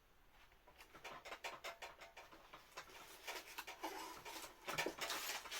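Faint crackling and clicking of things being handled, such as packaging or headphones on a desk. It starts about a second in and grows busier from about three seconds in, with a short rustle near the end.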